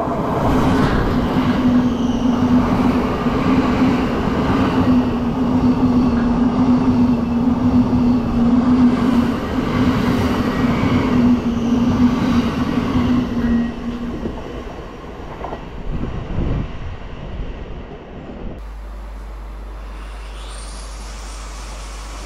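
Class 55 Deltic diesel locomotive with its Napier Deltic two-stroke engines: a loud steady engine drone over wheel-and-rail noise, fading away after about fourteen seconds. Near the end it gives way abruptly to a steady low rumble.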